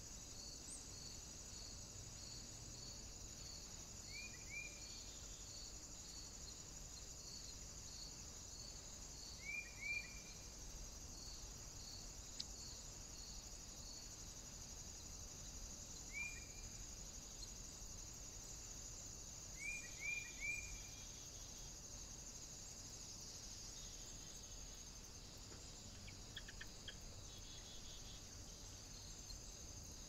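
Faint, steady high chirring of insects. A regular pulsing call repeats about one and a half times a second through the first half. Short high chirps come singly or in quick runs of two or three, four times.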